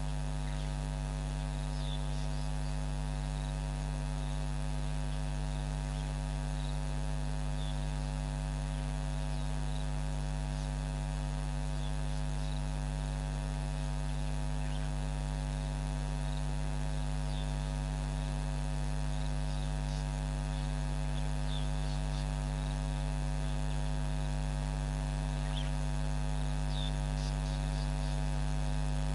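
Steady electrical mains hum: a stack of unchanging low tones that does not vary. A few faint, short high chirps are scattered through it.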